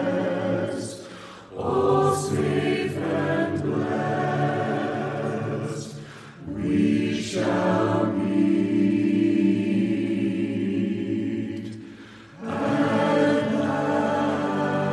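Choir singing slow, sustained phrases of a hymn, each about five seconds long with a short breath between them.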